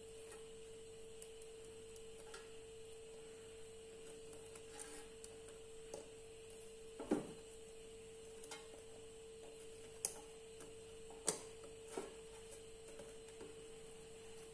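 A handful of faint clicks and taps as a metal spoon and fingers turn pakoras over on the air fryer baskets' grill trays, the sharpest about halfway through, over a steady low hum.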